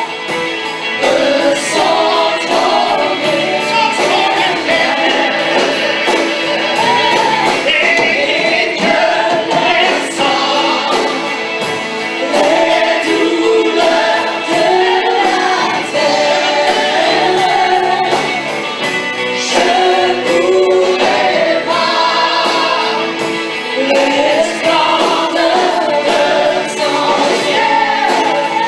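Live worship music: several women's voices singing together, with keyboard and violin accompaniment over a steady light beat.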